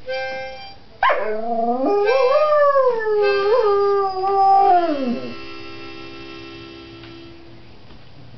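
Dog howling in song: one long howl that swoops in about a second in, rises and holds with a wavering pitch, then slides down and trails off around the five-second mark. A steady held tone sounds briefly at the start and fades slowly after the howl.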